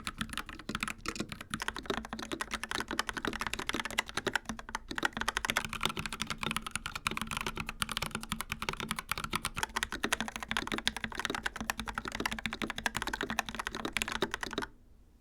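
Continuous fast typing on mechanical keyboards. First a Dark Project KD68B with G3ms Sapphire switches, then, about five seconds in, an Akko 3068B Plus with Akko Jelly Black switches. The typing stops abruptly shortly before the end.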